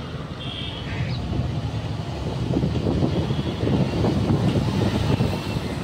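Engine and road noise of a moving bus heard from inside the cabin: a steady, uneven low rumble that gets louder about two seconds in.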